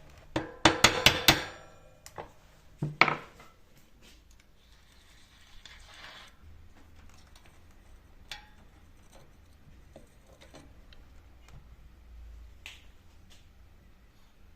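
Metal tools and parts knocking and clattering: a quick run of sharp knocks in the first second and a half, two more near three seconds in, then faint scattered clicks of handling.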